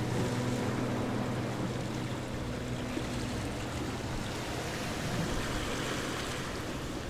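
Steady rushing wind noise, with the last notes of background music fading out in the first few seconds.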